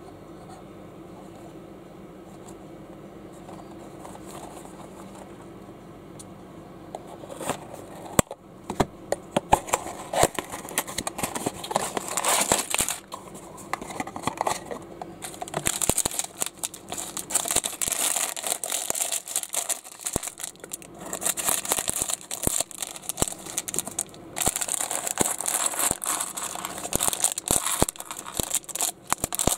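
Low steady room hum for the first several seconds. Then a cardboard box and a clear plastic parts bag are handled, crinkled and torn open, with many sharp clicks of small plastic bricks spilling onto a plastic baseplate.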